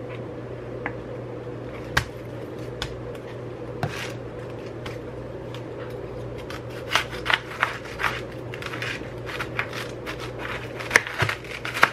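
Chef's knife cutting into a head of green cabbage on a plastic cutting board: scattered crisp crunches and scrapes, coming thick about seven seconds in and again near the end, over a steady low hum.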